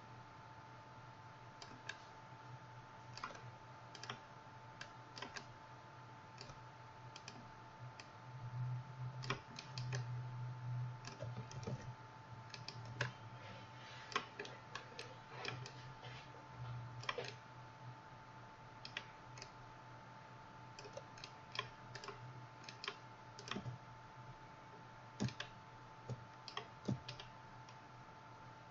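Computer keyboard keys and mouse buttons clicking at an irregular pace. Underneath runs a steady low hum that swells for a few seconds near the middle.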